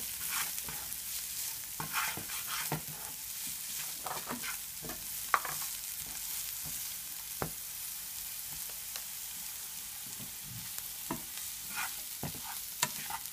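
Diced vegetables sizzling in oil in a frying pan while a plastic slotted turner stirs and scrapes them, with irregular clicks of the turner against the pan and one sharper knock about five seconds in.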